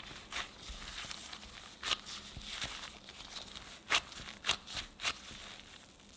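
Crumbly almond-flour cookie dough being squeezed and pressed together by gloved hands in a glass bowl: a soft, steady crumbling and rustling, with several sharp clicks, the loudest about two and four seconds in.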